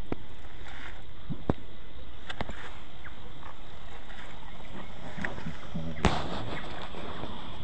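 Footsteps on dry, bare dirt ground over a steady outdoor hiss, with a few light scattered clicks and one sharper knock about six seconds in.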